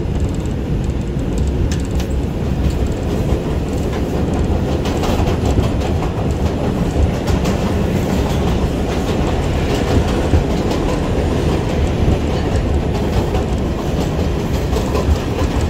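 New York City 2 train subway car running on elevated track, heard from inside the car: a steady rumble of wheels on rail with a clickety-clack of rail joints. About halfway through, another subway train passes close alongside and the clatter grows busier.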